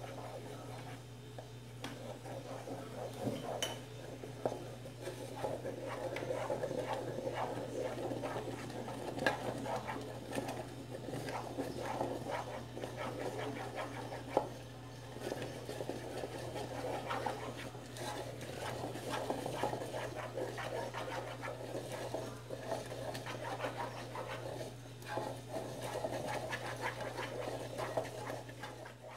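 Wooden spoon stirring a thick, sticky cocoa and coconut-milk brigadeiro mixture in a metal saucepan: continuous dense scraping and squelching, over a steady low hum.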